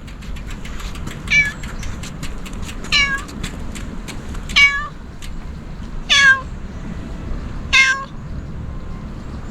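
A cat meowing five times, short meows evenly spaced about every second and a half, over a steady low background rumble.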